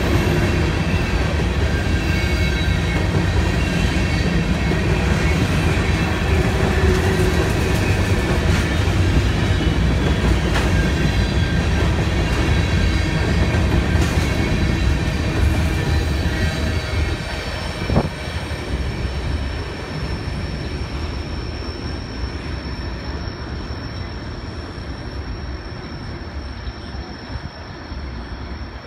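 CSX freight train of empty covered hopper cars rolling past close by, a steady rumble of wheels on rail with some high wheel squeal. About two-thirds of the way through the last cars go by with a single sharp knock, and the sound fades as the train draws away.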